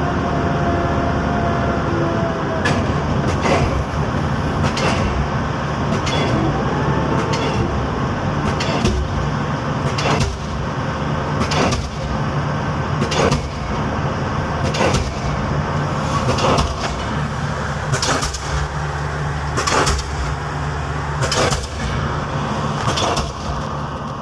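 13-ton pile hammer driving a pile, striking about every second and a half, starting about three seconds in, over a steady engine drone.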